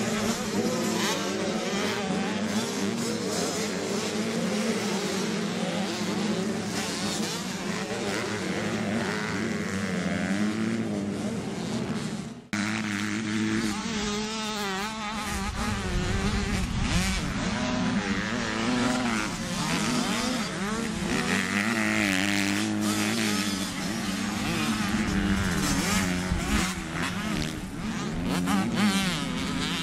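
Several motocross dirt bike engines revving as the bikes race round a dirt track, their pitch rising and falling with the throttle. The sound breaks off abruptly about twelve seconds in and picks straight up again.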